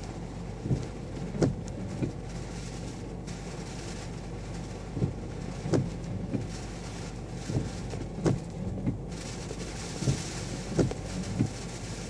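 Steady low hum of a stationary car, heard from inside the cabin, with about a dozen sharp taps of heavy typhoon raindrops striking the car's body and glass at uneven intervals. A hiss of wind and rain grows louder near the end.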